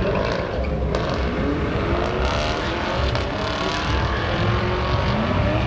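A Chevrolet Camaro and a second car accelerating hard down a drag strip, engine pitch climbing and dropping back several times as they shift through the gears.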